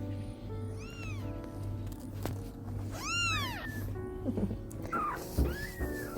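Newborn kittens mewing: a few short, high cries that rise and fall in pitch, over background music.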